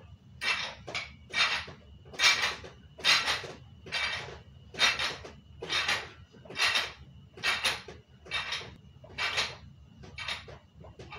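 A loaded 60-pound barbell rattling and clinking in a steady rhythm of just over one clink a second as it is pressed up and down in fast flat-bench-press reps. The weights, screw locks and spring clips knock against the bar on each stroke.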